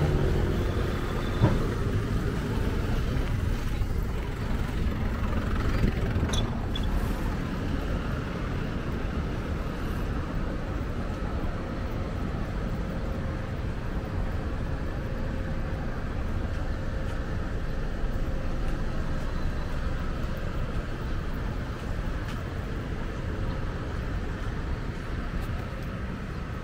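Road traffic noise: a steady rumble of passing cars, a little louder in the first few seconds as a vehicle goes by, with a few faint clicks.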